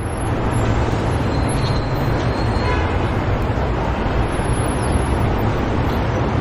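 Steady outdoor traffic ambience: a low rumble under an even hiss.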